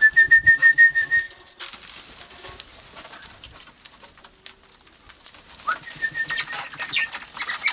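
Parrots calling at close range: a loud whistled call that sweeps up and then holds steady with a rapid flutter for about a second and a half, answered more softly near the end, over a run of short, high-pitched chirps.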